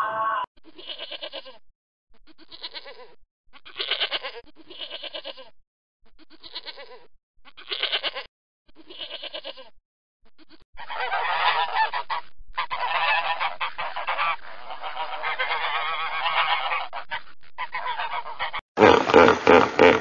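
Animal calls: a string of short separate calls about a second apart, then near-continuous calling with a wavering pitch through the second half, and a louder, different set of calls starting near the end.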